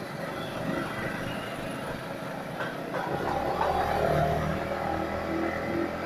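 Yamaha MT-15 V2's 155 cc single-cylinder engine running while riding in city traffic, shifted up from fourth to fifth gear, with road and wind noise on the handlebar-mounted microphone. The sound grows louder from about halfway through to near the end.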